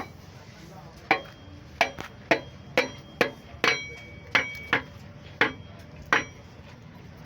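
About ten hammer blows on metal, irregularly spaced at roughly one to two a second, some leaving a short metallic ring. This is hammering to knock a cylinder sleeve out of an Isuzu 6BG diesel engine block.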